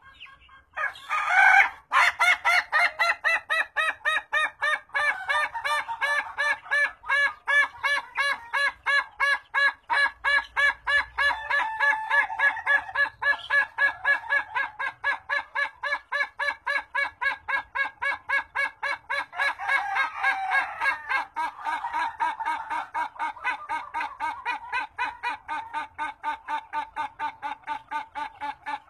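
Rooster giving a long 'laughing' crow, the drawn-out call of the Indonesian ayam ketawa (laughing chicken) type: a rapid, steady run of short clucking notes, about four a second, after a louder opening note about a second in.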